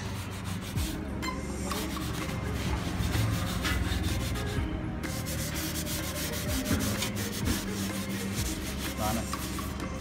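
A green scouring pad scrubbing the grimy metal body of a 1973 Maritsa 12 typewriter with cleaner: a continuous run of rough, rapid scratching strokes.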